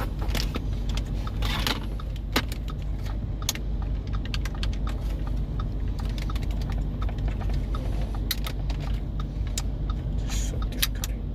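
Plastic wiring plug being worked and tugged loose from the back of a car radio unit: scattered sharp clicks and rattles of plastic, over a steady low hum.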